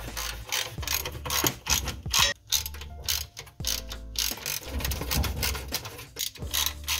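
Hand ratchet clicking in quick runs with brief pauses as a socket drives the transmission pan bolts of a Turbo 350 down against the new pan gasket.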